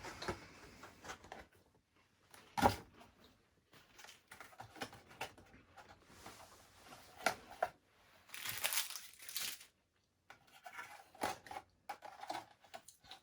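Plastic snack packaging crinkling and tearing in irregular bursts, with a few sharp clicks and crunches; the longest crinkling burst comes about two-thirds of the way through.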